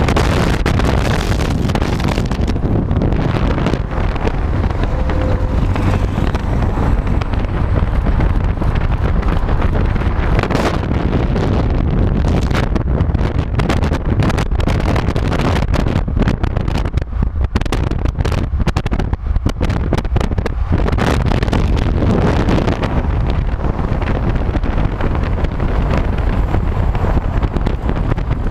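Wind buffeting the microphone of a camera at the window of a car driving at road speed, over the steady noise of the car and its tyres on the road. The buffeting comes in irregular gusts.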